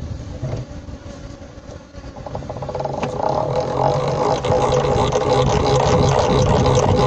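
Hand-cranked honey extractor spinning honeycomb frames: a steady mechanical whirring that grows louder about two to four seconds in, then runs evenly.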